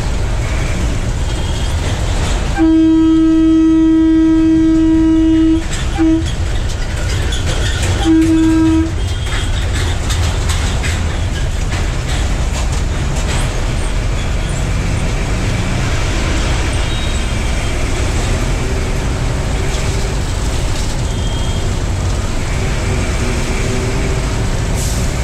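Bus horn blown in one long blast of about three seconds on a single steady note, a quick short toot, then a shorter blast, while the bus's engine and road noise rumble steadily inside the cab.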